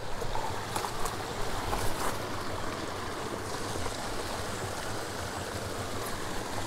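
Small mountain creek running steadily, with a few rustles and knocks of someone pushing through willow brush in the first couple of seconds.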